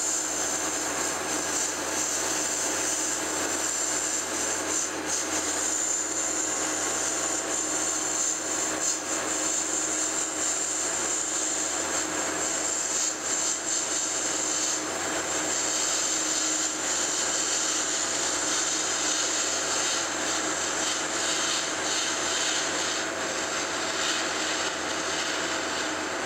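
Metal lathe running with an insert tool cutting into the face of a spinning cast iron Durabar disc: a steady scraping cut with a high hiss over the hum of the machine.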